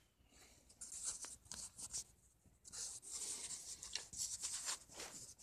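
Faint scratchy rustling and rubbing in irregular bursts, like handling noise.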